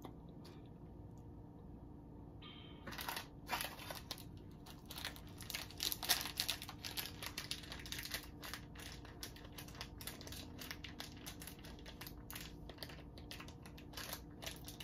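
Small plastic snack packet crinkling and crackling as it is handled and opened, starting about three seconds in.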